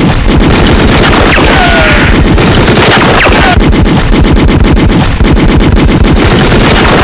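Continuous rapid automatic fire from assault rifles, many shots a second without a break, very loud, with a few short falling whines like ricochets.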